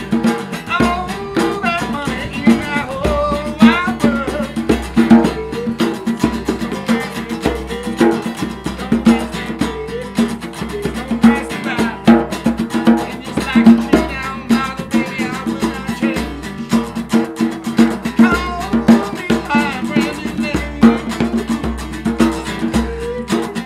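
Music with a steady drum beat and guitar.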